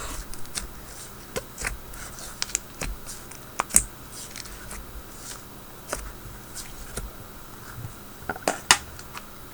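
Butter slime mixed with snow fizz being squished and worked by hand, giving scattered small crackles and pops, two of them sharper than the rest.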